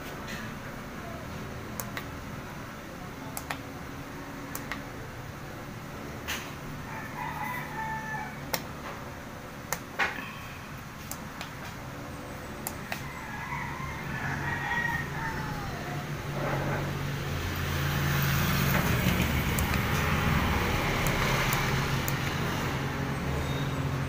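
A rooster crows twice in the background, over scattered sharp clicks as the buttons of a showcase chiller's digital temperature controller are pressed. A low rumbling hum builds up about two-thirds of the way through and carries on.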